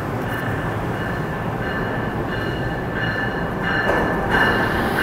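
Amtrak train rolling along the platform track, a steady rumble with a high-pitched squeal of steel wheels on the rails that grows louder about four seconds in.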